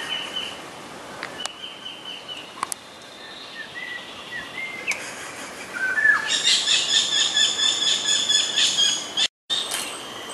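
Wild birds calling: scattered whistled notes and short rising glides, then about six seconds in a louder, fast-pulsing call that breaks off abruptly, with more calls after it.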